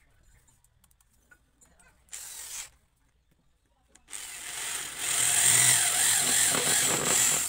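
Corded electric drill boring into a hardwood plank, the bit cutting and throwing out wood chips. It starts about four seconds in after a brief whir a couple of seconds earlier, and gets louder as it bears into the wood for the last two seconds.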